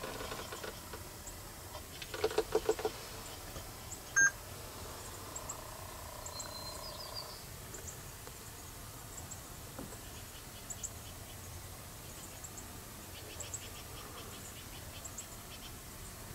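Quiet outdoor background with faint, scattered high bird chirps. A quick run of clicks comes about two seconds in, and a short, sharp beep about four seconds in is the loudest sound.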